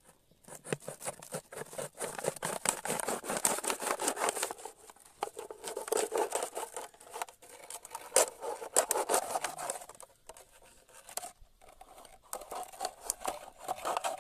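Thin plastic water bottle being sawn and scraped through with a machete: a dense crinkling, crackling scrape that comes in three spells with short breaks.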